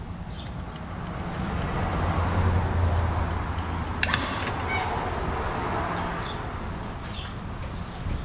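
A motor vehicle going past: a low engine hum that builds over the first couple of seconds and fades away near the end. A single sharp click about four seconds in, and a few faint bird chirps.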